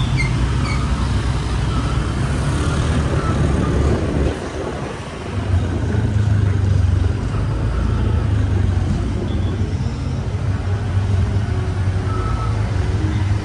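Road noise of a motorbike riding through town traffic: the bike's engine with nearby cars, a steady low rumble that eases off briefly about four seconds in.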